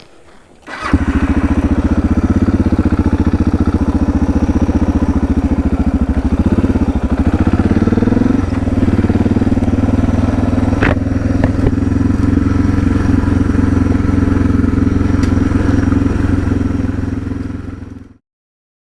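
Suzuki DR650's single-cylinder engine running steadily, with a brief rise and fall in pitch around the middle; it cuts off abruptly near the end.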